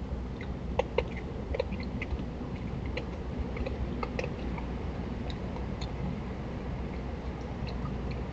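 An opossum chewing food from a dish close to the microphone: irregular clicking chews, a few louder ones about a second in, over a steady low background rumble.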